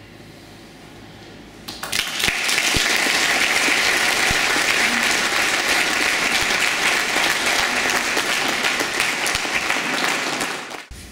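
Audience applauding: a large group clapping, starting suddenly about two seconds in, holding steady, and dying away near the end.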